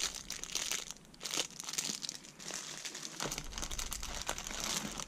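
Thin clear plastic bags crinkling as hands handle a bagged figurine, then rummage in a bag of more figurines: irregular crackling throughout.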